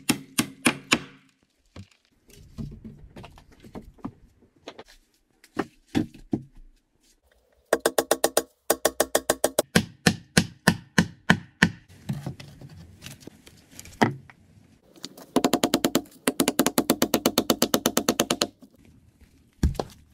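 Hammer driving nails into wooden boards: scattered knocks, then two runs of quick ringing strikes, about eight to ten a second, the longer one near the end.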